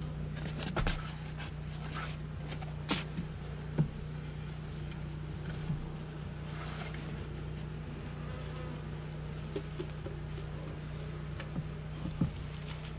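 Honeybees buzzing steadily around an open hive, with a few sharp knocks from wooden hive boxes being handled, the loudest about four seconds in and near the end.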